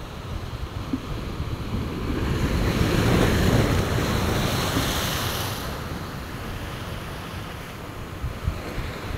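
Sea surf breaking against the boulders of a rock breakwater: a wave surges in about two seconds in and washes back over the next few seconds. Wind rumbles on the microphone.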